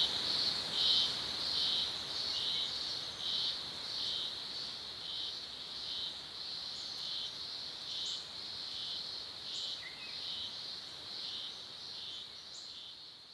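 Insects chirping in a steady high-pitched chorus that pulses about one and a half times a second, fading away near the end.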